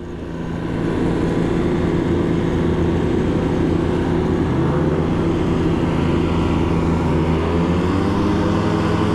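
CPI Aragon GP 50 scooter's 50 cc two-stroke engine running at low road speed, a steady drone that swells over the first second as the throttle opens, its pitch shifting slightly a couple of times.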